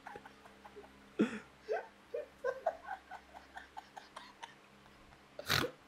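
Quiet, scattered giggling and stifled laughter from a few people, with a short breathy laugh near the end.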